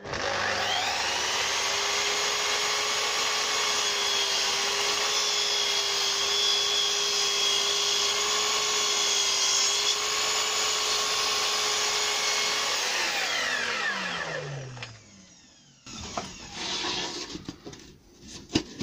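Mitre saw running while it crosscuts a thin panel, the motor holding a steady pitch for about thirteen seconds. It is then switched off and winds down, its pitch falling away over a couple of seconds. A few light knocks follow near the end.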